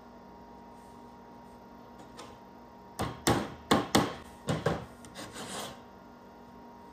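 Hammer tapping small nails into a wooden board: about eight quick strikes starting about three seconds in, the last few lighter.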